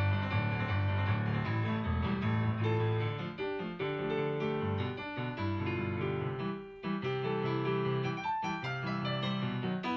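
Background music: a solo piano cover, a medley of anime theme tunes.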